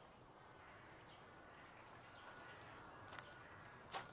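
Near silence: faint outdoor ambience with a few faint bird chirps, and one sharp knock near the end.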